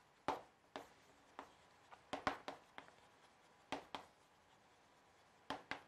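Chalk tapping and scraping on a chalkboard as words are written: a dozen or so short, sharp taps at irregular intervals, faint overall.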